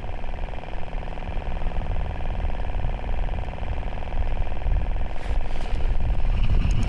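Wind rumbling on the microphone, with a steady, rapidly pulsing motor-like drone under it that fades after a few seconds.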